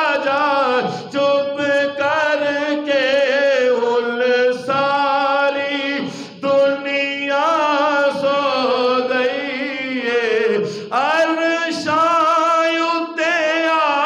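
Solo male voice singing a Punjabi devotional naat without instruments: long held notes with a wavering vibrato and melismatic turns, with short breaks between phrases.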